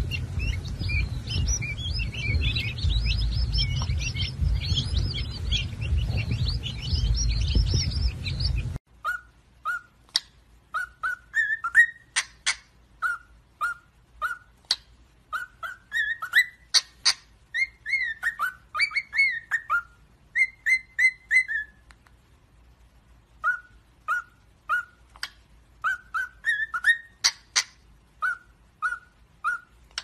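A mass of quail chicks peeping, a dense high chirping over a low rumble, which cuts off abruptly about nine seconds in. Then cockatiels whistle short, often rising notes in quick strings, with a pause of about two seconds in the middle.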